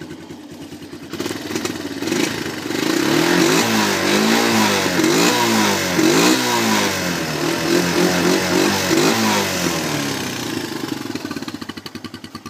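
Honda ATC 125M three-wheeler's single-cylinder four-stroke engine idling, then revved up and down several times with the thumb throttle from about two seconds in, dropping back to idle near the end.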